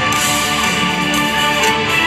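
Loud live concert music from an arena stage: a full band playing sustained, held notes without a break.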